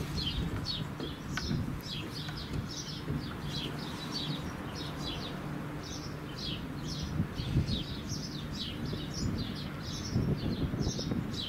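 Small birds chirping busily, a quick run of short high calls, over the low, steady drone of a Class 66 diesel locomotive's two-stroke V12 engine as it approaches.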